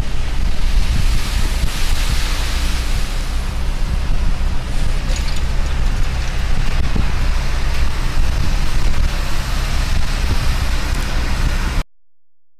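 Harvest machinery engine running steadily in a field, with wind buffeting the microphone; the sound cuts off abruptly near the end.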